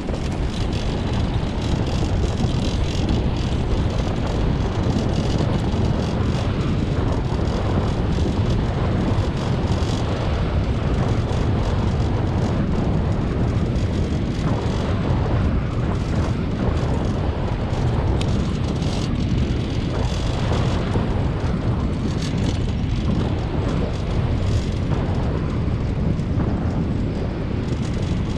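Steady rumbling noise from a moving dog-pulled rig: wind buffeting the microphone and wheels rolling over gravel, then over a dirt trail.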